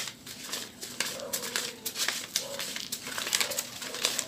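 Crisp paper banknotes being leafed through and counted by hand: a quick run of crinkling, snapping paper rustles.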